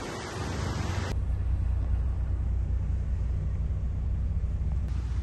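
Wind and water rush past a motor boat. About a second in, a sudden cut leaves only the boat's engine, a steady low rumble.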